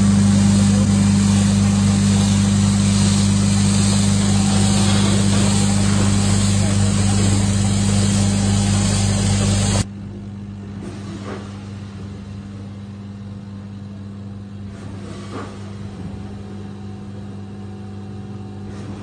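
Coffee-bean linear weigher and packing machine running with a steady low electrical hum over machine noise. About halfway through, the loud noisy part stops abruptly, leaving a quieter steady hum with a couple of faint clicks.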